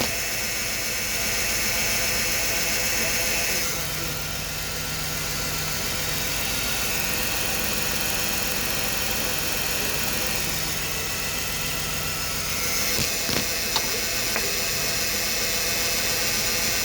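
Ford Taurus engine idling steadily, with a misfire on cylinder 5. A few light clicks come near the end.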